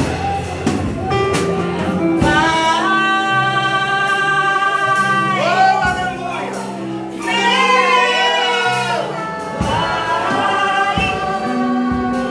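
Gospel worship song: a singer holding long sustained notes over instrumental accompaniment.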